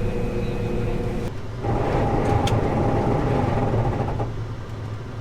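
Farm machine engine running steadily; a steady whine joins about one and a half seconds in and stops about four seconds in, with a single sharp click in between.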